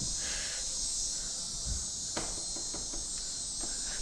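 Steady high-pitched drone of insects in the background, with a few faint short knocks a little over two seconds in.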